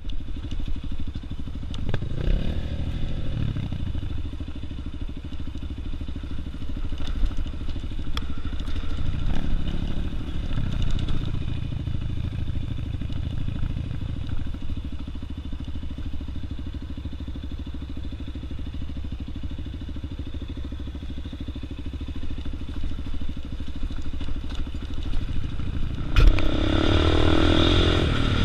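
Single-cylinder trail motorcycle engine running at low speed, the revs rising and falling a few times as the bike picks its way along a rough dirt track, with the chassis clattering over the ground. Near the end it runs louder.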